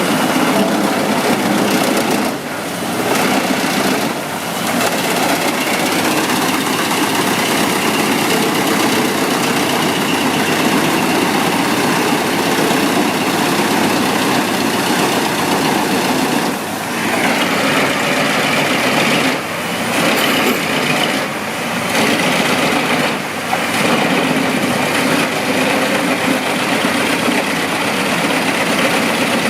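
Wood chipper's engine running steadily and loudly, with several brief dips in loudness.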